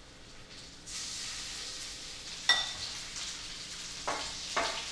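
Chicken thigh pieces sizzling in hot oil in a cast iron skillet, the steady sizzle picking up about a second in. About halfway through comes one sharp, ringing clink of metal tongs against the pan, and near the end two softer knocks.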